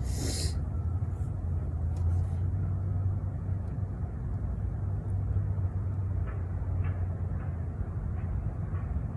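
Buick LeSabre engine idling, a steady low rumble, with a brief hiss right at the start.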